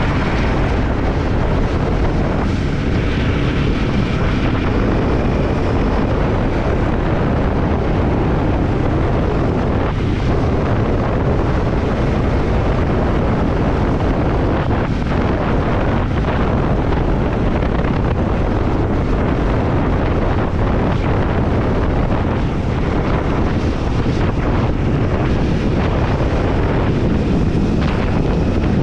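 Triumph Scrambler 400X's single-cylinder engine running steadily while riding on the road, mixed with heavy wind rush on the microphone.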